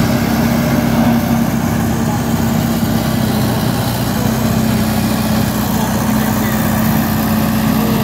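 Diesel engine of a Dynapac single-drum road roller running steadily at a low, even pitch as the roller moves slowly over gravel.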